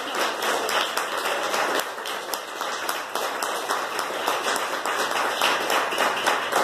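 Audience applauding: a steady run of many overlapping hand claps.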